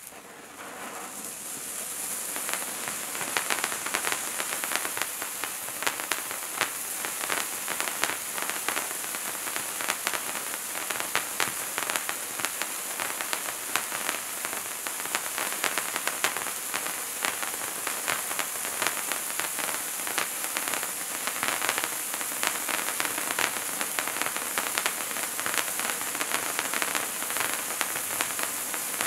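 Bright Star Wizards Wands hand-held firework fountain burning: a steady hiss with dense fine crackling from the spark spray. It starts faint as the wand catches and builds over the first couple of seconds.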